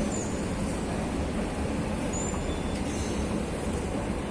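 Steady low rumble of a metro station heard from a moving escalator, with a few brief, faint high squeaks.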